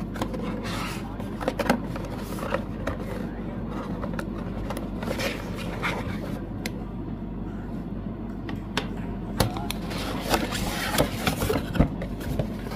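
Fan kit packaging and contents handled by hand, with scattered scrapes, taps and rustles that cluster near the start, midway and near the end. A steady low hum runs beneath.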